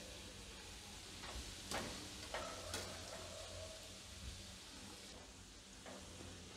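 Ghughra pastries deep-frying in ghee over a low flame: a faint, steady sizzle, with a few light clicks of a wire skimmer against the pan in the first half.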